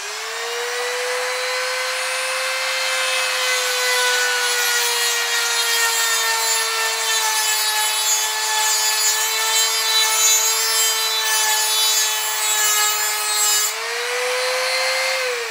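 INGCO mini die grinder (rotary tool) with a small cut-off disc grinding into a thick steel strip: a steady motor whine with a loud grinding hiss. Near the end the disc comes off the metal, the hiss stops and the whine rises slightly as the motor unloads. The disc only scores a cut mark; the tool is not made for work this heavy.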